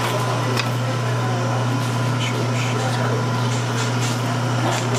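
Steady low hum of running kitchen machinery, with a fainter steady high tone over it. A few light taps and clicks from the knife and hands working on the cutting board.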